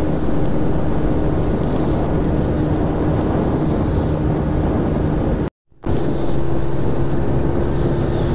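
Honda Dio scooter's single-cylinder engine running steadily at cruising speed, with wind rushing over the helmet-mounted camera's microphone. The sound breaks off for a moment about five and a half seconds in and comes back with the engine note slightly higher.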